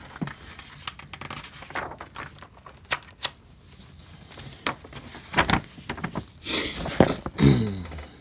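Paper handling: magazine pages being turned and handled, irregular rustles and clicks, with a louder rustle about six and a half seconds in and a short falling pitched sound just after it.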